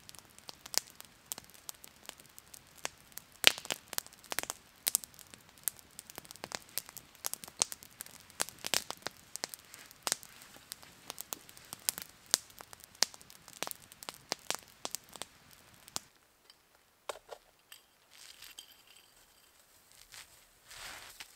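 Campfire crackling, with many sharp pops as the burning wood throws sparks. About three-quarters of the way through it cuts off abruptly, leaving faint sounds and a short scrape of hands in snow near the end.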